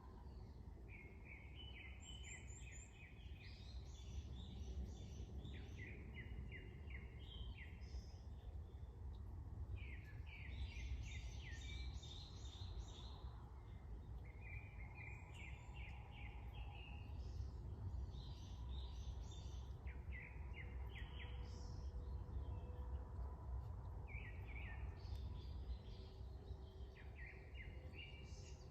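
Small birds chirping in quick series of short notes, group after group all through, over a steady low background rumble.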